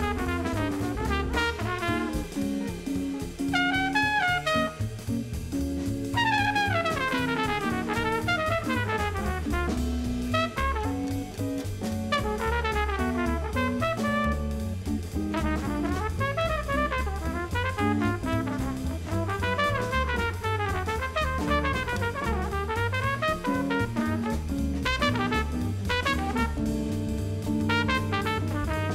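Jazz quartet playing: a trumpet solo of fast runs sweeping up and down, over double bass, jazz guitar and drum kit with cymbals.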